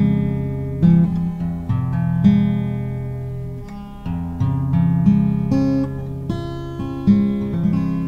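Acoustic guitar being finger-plucked, single notes and chords left to ring, with a new pluck about every half second in a slow, even pattern.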